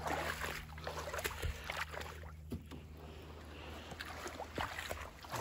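Shallow water splashing and sloshing around a small tin boat as it is dragged through flooded grass, with scattered light knocks.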